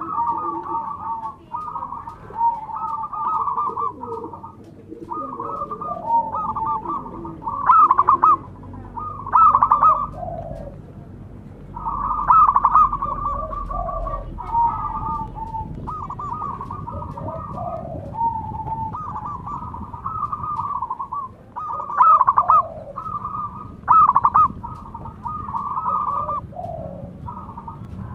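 Zebra doves (perkutut) cooing in rapid, stuttering trilled coo phrases, the calls overlapping one another with hardly a pause. About five of the calls stand out louder than the rest.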